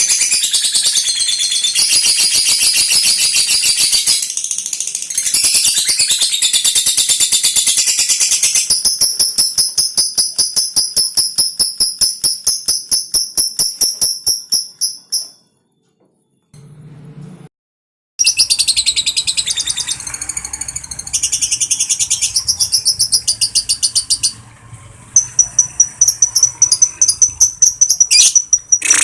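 Lovebird's long, very fast high-pitched chattering trill (ngekek). It fades out about halfway, breaks off for a few seconds, then starts again, ending as a steady rapid trill on one pitch.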